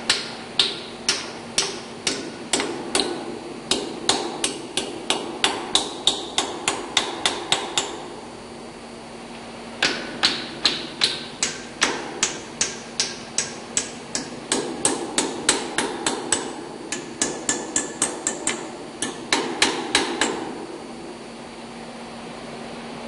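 Steel hammer blows on steel: a run of sharp taps, about two to three a second, bending the tabs of a locking disc up against the lock nuts of a marine engine's chain tightener bolt. The tapping pauses for about two seconds midway, then resumes and stops near the end.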